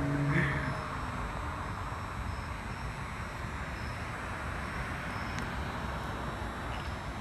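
Outdoor street background at night: a steady rumble and hiss. In the first second a passing vehicle's engine note falls in pitch and fades away.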